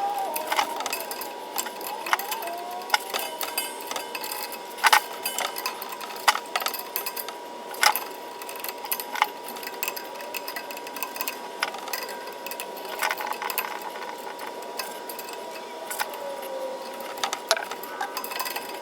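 Scattered small clicks, taps and several sharper knocks of hand work on an electrical box, with stiff 10-gauge wire being bent into place and a ground screw being fastened. A steady high-pitched tone runs underneath.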